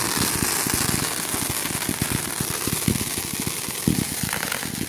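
Fireworks going off in a dense, rapid run of pops and low booms, with a steady crackling hiss above them.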